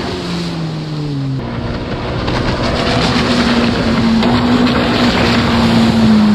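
Yamaha WaveRunner personal watercraft engines running at high speed, their pitch falling slightly over the first second and a half. Then a steady, louder engine tone under rushing water spray and wind noise that builds from about two seconds in.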